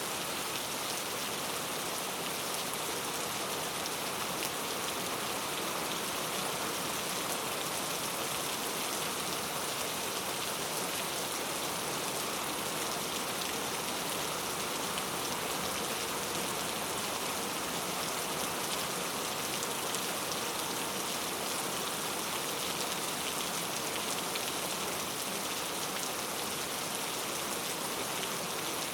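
Steady rain falling, an even hiss of many drops pattering on surfaces, with no let-up.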